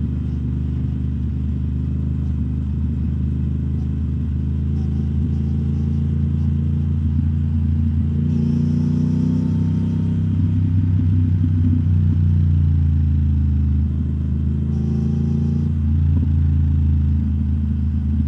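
2021 Triumph Speed Twin 1200's parallel-twin engine running steadily under way through British Customs Turnout exhaust tips. Its note shifts in pitch about eight seconds in and again about fifteen seconds in.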